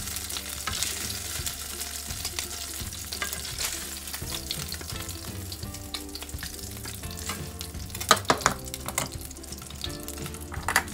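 Egg-and-cornstarch-coated shrimp sizzling steadily in hot oil in a nonstick wok, with a spatula scraping as they are stirred. A cluster of sharp knocks comes about eight seconds in.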